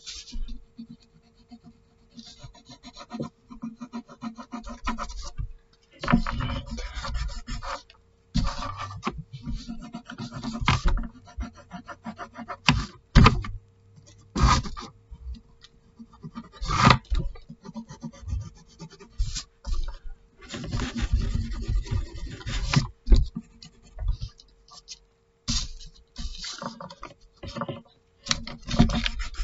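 Pencil scratching and rubbing across paper in irregular strokes of varying length, close to the microphone, over a faint steady hum.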